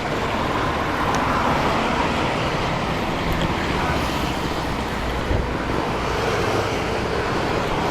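Steady road traffic noise: engines and tyres of passing cars mixed with a low rumble, with no single event standing out.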